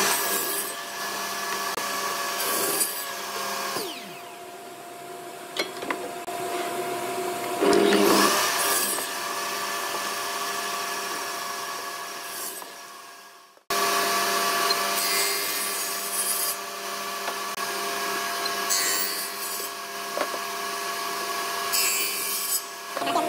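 Table saw running with a steady motor hum, its spinning blade biting into wooden boards again and again in short cuts, each cut a louder rasp over the hum.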